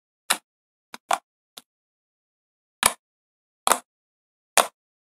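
Green slime squeezed and folded by hand, making seven short wet pops and crackles at irregular intervals, with silence between them.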